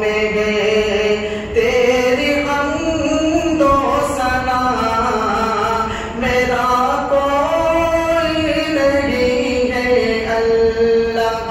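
A man's solo voice chanting hamd o naat, Islamic devotional verse, into a microphone with no instruments. He sings long held notes that slide slowly up and down in pitch.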